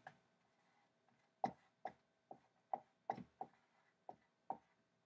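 Dry-erase marker writing on a whiteboard: a quick, uneven series of short, faint squeaks and taps, two to three a second, starting about a second and a half in.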